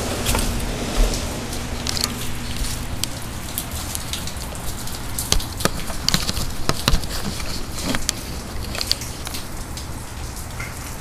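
Heavy rain falling steadily, with frequent sharp taps of drops striking close by.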